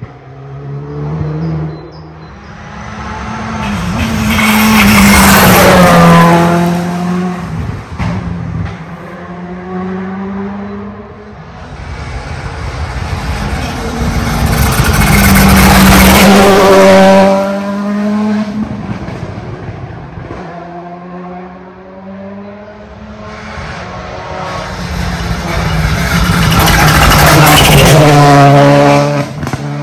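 Three rally cars passing at speed one after another, each engine note building to a loud peak as the car goes by and then falling in pitch as it pulls away.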